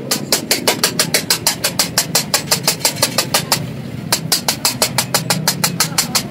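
A flat metal spatula striking rapidly against a large tawa griddle, chopping minced chicken keema in oil, about six clacks a second over a steady low rumble, with a brief pause about three and a half seconds in.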